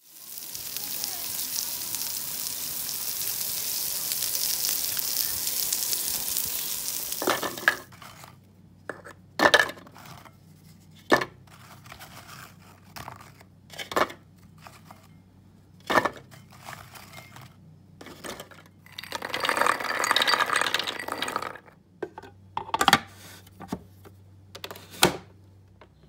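Peppers and eggplants sizzling on a charcoal grill, a steady hiss that cuts off about seven seconds in. Then biscuits being dropped into a plastic chopper bowl: a string of short sharp taps and clicks every second or two, with a longer rustling noise about twenty seconds in.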